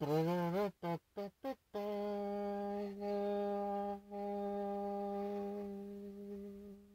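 Production-logo intro jingle: one low note that rises and wavers, three short notes, then one long held note that fades away near the end.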